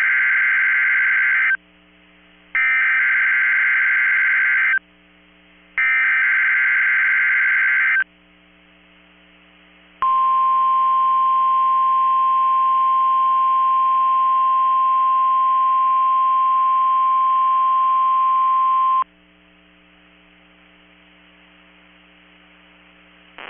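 NOAA Weather Radio Emergency Alert System test signal. It opens with three identical bursts of SAME header data, a rapid two-tone digital warble about two seconds long each, a second apart, that encodes the Required Weekly Test. About two seconds later comes the steady 1050 Hz weather radio warning alarm tone, held for about nine seconds; this tone sets off tone-alert weather radios.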